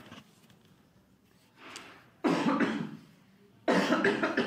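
A man coughing hard into his hand in two fits: a short one about two seconds in and a longer one near the end. It is the heavy, persistent cough of a tuberculosis patient.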